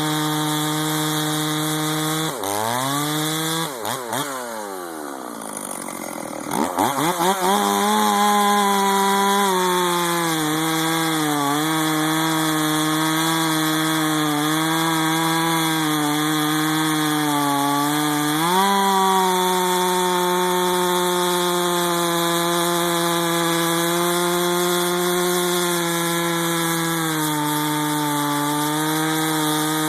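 West German Stihl 044 two-stroke chainsaw, the 12 mm-pin version, running at high revs and pulling under load as though cutting wood. A few seconds in, the engine drops almost to idle and then revs back up. It runs steadily after that, with a brief sag and a step up in pitch about two-thirds of the way through.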